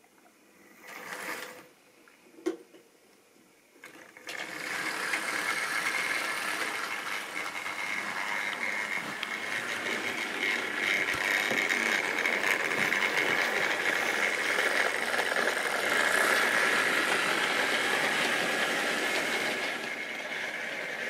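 Model railway train running past on sectional track: a steady rattling whir of the locomotive's motor and the wagons' wheels clicking over the rail joints, starting about four seconds in. A brief rustle and a sharp click come before it.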